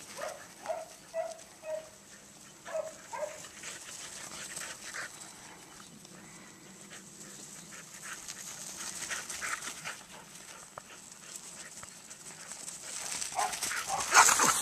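Australian shepherd barking while working sheep: several short barks in quick succession in the first two seconds, and a couple more about three seconds in. Near the end there is a loud, close scuffing noise.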